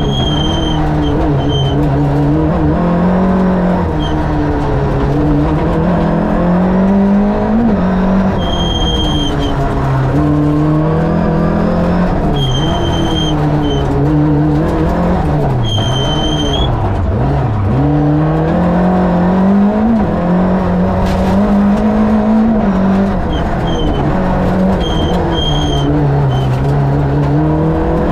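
Fiat two-litre twin-cam eight-valve four-cylinder engine of a Lada rally prototype, heard from inside the car at stage pace, its revs climbing and dropping again and again through gear changes, braking and acceleration. Brief high squeals cut in several times.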